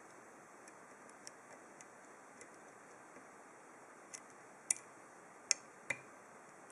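Dimple pick clicking against the pins inside a dimple lock cylinder under tension: light, scattered ticks, then three sharper clicks in the last two seconds.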